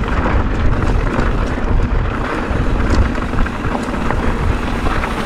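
Wind buffeting the microphone over the rumble of a mountain bike rolling down a rocky dirt trail, with frequent small rattles and knocks from tyres on gravel and the bike's parts.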